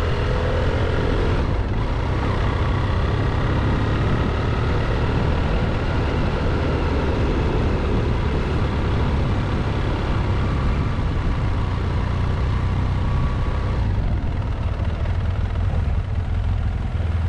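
Motorcycle engine running steadily under way, with road and wind noise.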